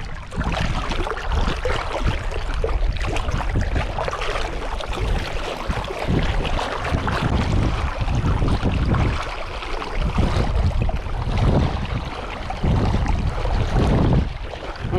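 Wind buffeting the microphone, a rumbling that swells and falls, over the rushing wash of seawater.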